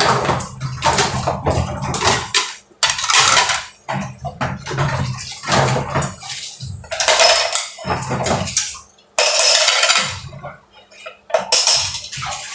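Plates, pots and cutlery clinking and clattering as they are washed by hand, with short stretches of splashing water.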